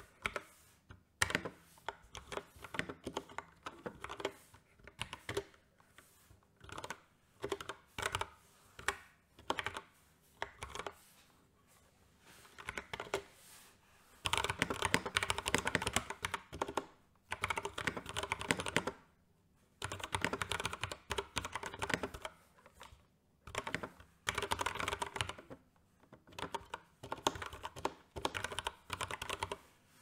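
Typing on an LTC NB681 Nimbleback mechanical keyboard fitted with Honey and Milk keycaps. The keystrokes come in short clusters with pauses at first, then in faster, denser runs with brief breaks from about halfway through.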